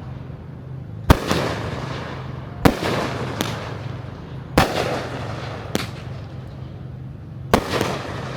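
Aerial fireworks bursting: four loud bangs a second or two apart with two smaller pops between them, each trailing off in echo. A steady low hum runs underneath.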